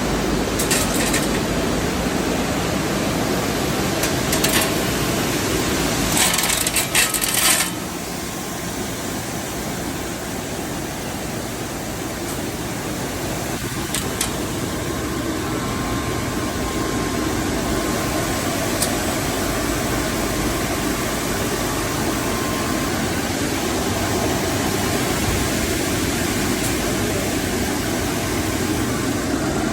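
Mesh belt heat-treatment furnace line running with a steady machinery hum, broken by short bursts of metallic clattering in the first eight seconds, loudest around six to seven seconds in.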